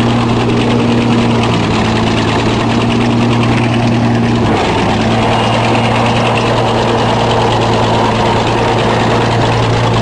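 Bulldozer engine running steadily, heard from on board the machine, with a brief dip in pitch about four and a half seconds in.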